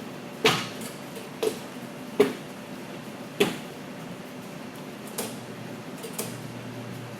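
A series of six sharp knocks at uneven intervals, the four in the first half louder than the two later ones, over a steady background hum in the shop.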